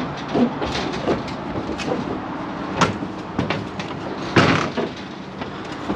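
Cattle loading onto a metal livestock trailer: knocks and clanks of hooves and metal, with two louder bangs about three and four and a half seconds in, over a steady low hum.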